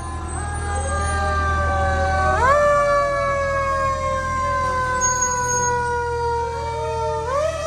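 Fire engine siren sounding, its pitch jumping up quickly three times and gliding slowly down in between, over a low truck-engine drone in the first couple of seconds.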